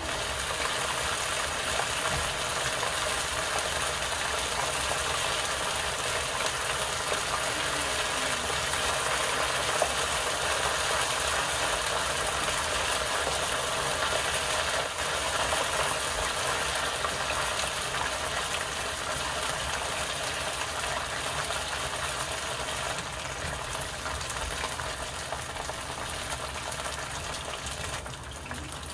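Battered pork pieces deep-frying in oil at about 180 °C in a frying pan: a loud, steady crackling sizzle of fresh batter in hot oil, easing slightly near the end.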